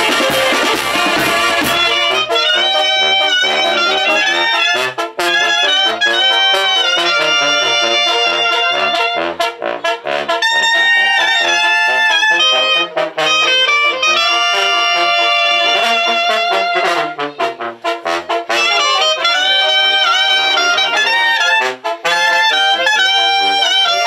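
Oaxacan banda de viento playing: drum kit and cymbals with the brass for about the first two seconds, then the drums drop out and the brass and clarinets carry the melody alone, with a few short breaks between phrases.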